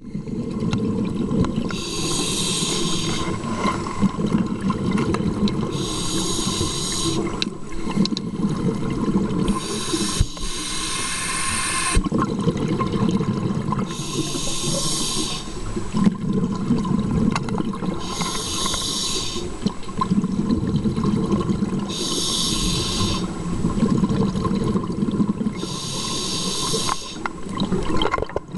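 Scuba diver breathing through a regulator underwater: a hissing inhalation about every four seconds, alternating with the low rumble of exhaled bubbles.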